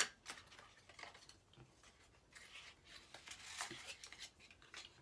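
Faint clicks and rustles of a concealer's plastic retail packaging being worked open by hand, with a longer crinkle about three and a half seconds in.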